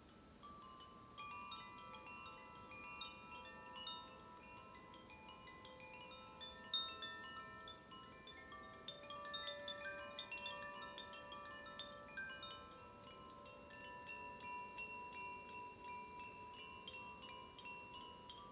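Healing wind chimes ringing softly, many notes struck one after another and left to ring out and overlap, with light high tinkles. A single brief sharp click about seven seconds in is the loudest moment.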